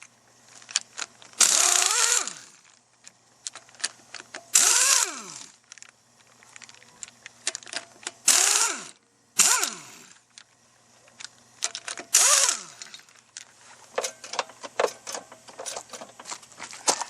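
Power impact wrench run in five short bursts, each one winding down with a falling whine as the trigger is let go, working fasteners loose on a Jeep Cherokee front wheel hub. Near the end come rapid metallic clicks and clinks of tools and parts being handled.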